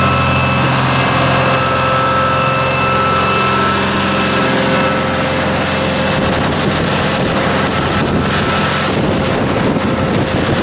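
Yamaha ME420STI diesel engine of a Hardy 24 fishing boat running steadily at cruising speed, a low hum under the rush of water along the hull and wake. From about halfway in, wind buffets the microphone.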